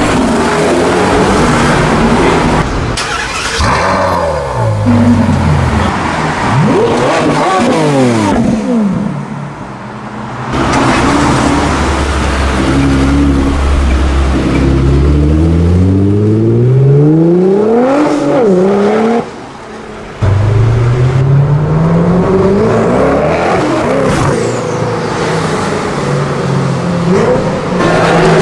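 Several supercar engines revving and accelerating past one after another, their pitch climbing steeply and dropping with each gear change.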